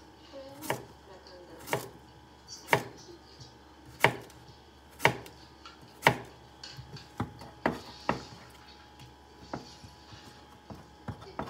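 Kitchen knife slicing a cucumber on a cutting board, each cut ending in a sharp knock of the blade on the board, about once a second. About two-thirds through the knocks turn lighter and come in a quicker run, then a few scattered soft taps follow.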